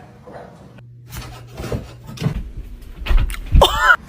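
A run of knocks and thumps, then near the end a short, high, wavering cry.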